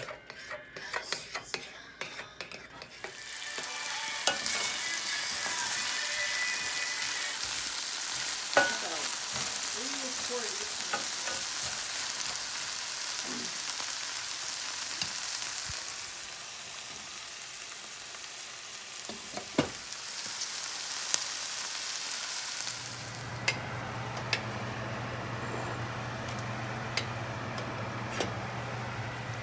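Food sizzling as it fries in a pan, with clicks and scrapes of a utensil at the start and a few knocks along the way. The sizzle is loudest through the first half. About three-quarters of the way in, a steady low hum joins it.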